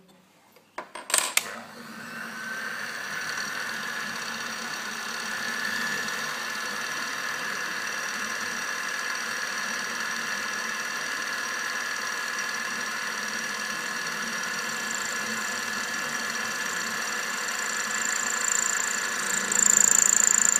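Small watchmaker's lathe switched on with a few sharp clicks about a second in, its electric motor and spindle then running steadily with a whine. It gets louder and a high whine comes in over the last couple of seconds.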